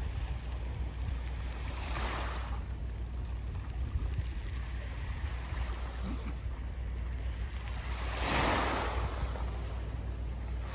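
Small waves washing onto a pebble shore, the wash swelling twice: about two seconds in and, louder, about eight seconds in. Under it runs a steady low rumble of wind on the microphone.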